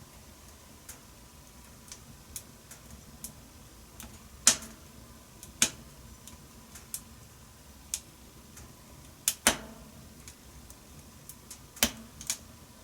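Wood fire crackling in a wood-burning stove: irregular small ticks and pops, with a few louder snaps about a third of the way in, in the middle, and near the end.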